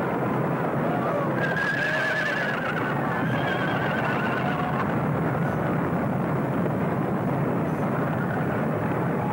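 Horses neighing over a steady, dense din, with one long wavering whinny about a second and a half in.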